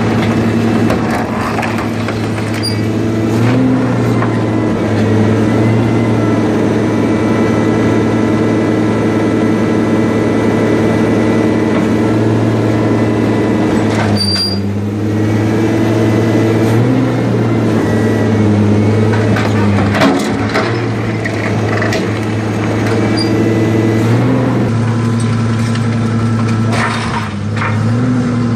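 Scrap shear baler's hydraulic power unit running with a steady hum that dips in pitch several times, with a few metal knocks and clanks, the sharpest about 14 and 20 seconds in.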